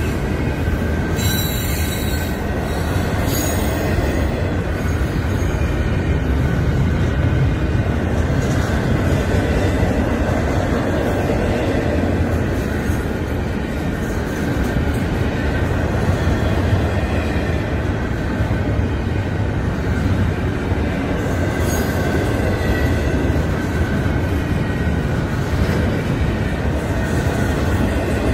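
Florida East Coast Railway intermodal freight train's container cars rolling past at a grade crossing: a steady, unbroken rumble of wheels on rail, with thin high squealing tones from the wheels above it.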